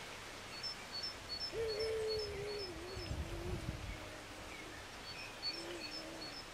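Dove cooing: one long wavering phrase that sinks slightly in pitch, then a short coo near the end. Throughout, a small songbird repeats high chirps in pairs.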